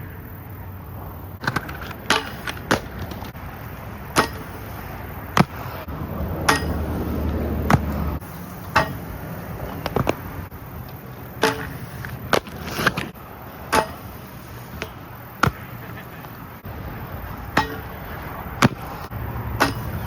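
Skateboard rolling on pavement, with sharp clacks of the board and wheels about once a second and a steady low rolling rumble that swells for a couple of seconds about six seconds in.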